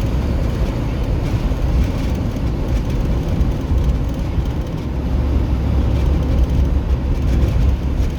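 Road noise of a moving vehicle heard from inside the cabin: a steady low rumble of engine and tyres.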